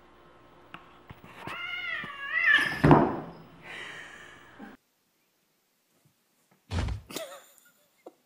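A cat yowling in a wavering wail during a standoff, then a loud sudden scuffle about three seconds in and a hiss. After a pause, a loud thud near the end.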